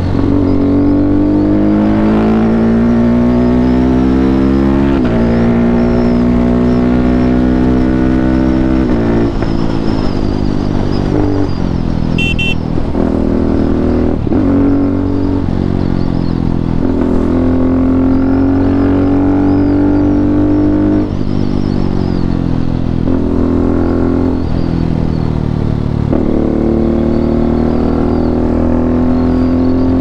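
KTM RC 390's single-cylinder engine through a full-system Akrapovic exhaust, under way. It rises in pitch under throttle and drops back sharply several times, as with gear changes.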